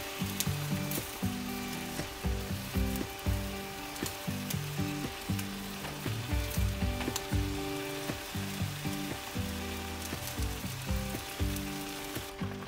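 A one-person hot pot in a disposable aluminium pan simmering on a gas burner, sizzling and crackling with many small pops. Background music with slow-moving low notes plays under it.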